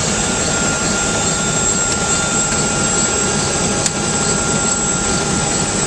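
UH-1 Huey helicopter's Lycoming T53 turboshaft engine running steadily on a ground run after a rebuild, with a constant high turbine whine over a loud rushing roar. A single sharp click about four seconds in.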